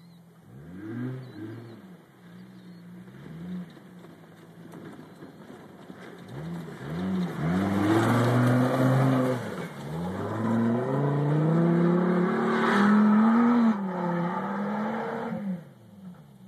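2005 Chevrolet Colorado pickup's engine revving under load in repeated surges: a short rev about a second in, then longer climbs from about six seconds and again from about ten seconds, loudest toward the end, before dropping back to idle near the end.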